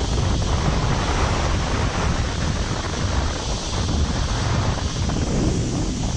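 Cyclone-strength wind blowing hard across the microphone, a steady rush with low, uneven buffeting.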